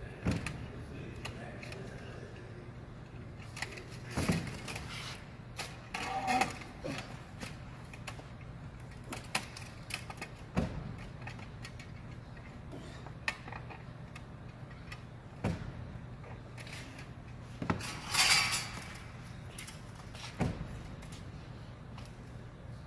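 Scattered metallic clinks, rattles and knocks as baling wire and baler parts are handled, over a steady low hum. The loudest is a longer rattling scrape about eighteen seconds in.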